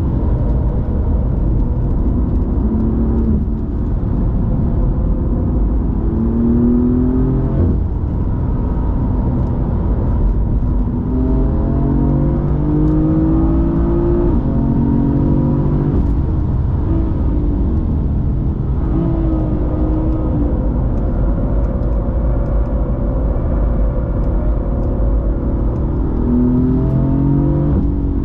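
BMW M4's twin-turbo straight-six engine at full racing pace, revving up through the gears several times and dropping back as the throttle is lifted, over a steady low rumble of road and drivetrain noise.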